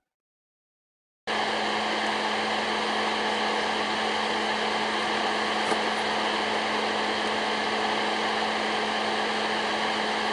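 Steady whirring drone heard inside a stopped car with its engine running, a low steady hum under an even fan-like whir. It starts abruptly about a second in after a moment of silence.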